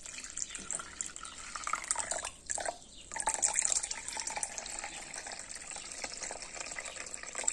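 Liquid poured in a stream from a metal cooker pot onto a dish towel stretched over a container, splashing and trickling through the cloth. The pour falters briefly about three seconds in, then runs on steadily.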